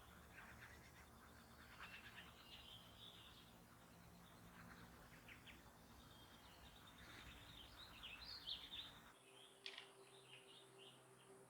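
Faint birdsong: several birds chirping and calling over a low, steady background rumble. The rumble drops out abruptly about nine seconds in, while the chirping goes on.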